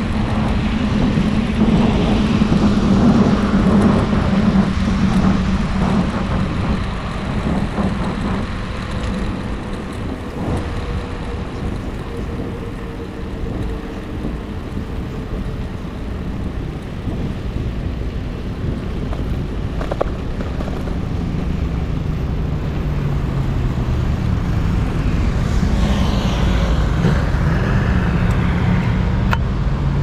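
Steady road traffic and rushing air heard from a moving bicycle, with traffic growing louder near the end as the bike nears a busy road junction.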